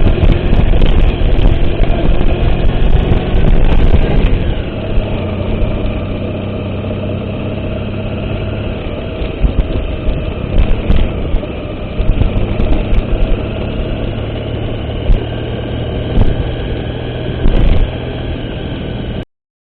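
A vehicle engine running steadily as it crosses a river, with loud irregular rushes and knocks over it through the first four seconds and a few more later on. It cuts off suddenly near the end.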